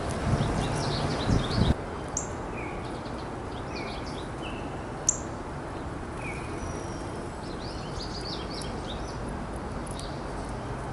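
Wild birds chirping and calling: short, repeated downward-slurred notes every second or so, mixed with clusters of higher, quicker chirps, over a steady outdoor hiss. A low rumble in the first two seconds stops abruptly.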